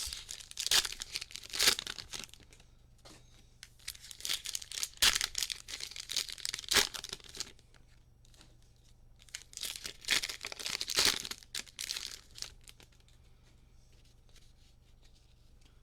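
Plastic cello-wrapped trading-card packs being torn open and their wrappers crinkled: three separate bursts of tearing and crinkling a few seconds apart, one for each of three packs.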